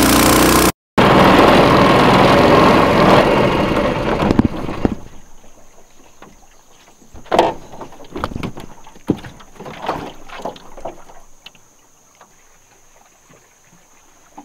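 Long-tail mud motor running hard with the boat under way, spray and wash hissing behind it. The motor dies away about four to five seconds in. A few scattered knocks and clunks follow as the boat drifts.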